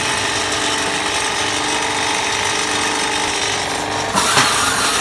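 Motorbike tire-cutting machine running steadily with a mechanical whirr, with a short, louder harsh burst about four seconds in.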